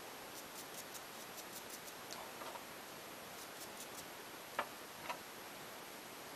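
Faint, irregular light ticks and scratches of a small wire brush working over small metal silencer parts to clear lead and powder deposits, with two sharper clicks about four and a half and five seconds in as small metal spacers are set down.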